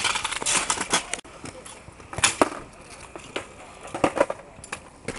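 Stunt scooter riding a concrete ramp: hard wheels rolling and clattering on the concrete, loudest in the first second, with sharp knocks of the deck and wheels striking the surface about two seconds in and again about four seconds in.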